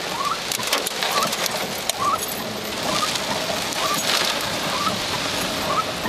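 Heavy rain and waterfall spray pouring onto a vehicle's windshield and roof: a steady rushing hiss with scattered sharp taps of drops hitting. Short chirps repeat about once a second over it.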